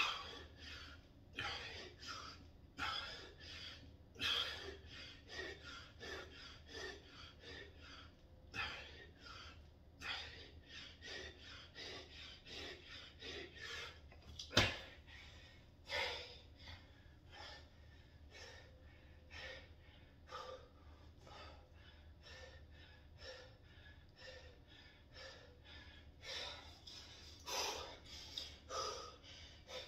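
A man's heavy, quick breathing during a bodyweight workout, a hard breath every second or less, with one sharp knock about halfway through.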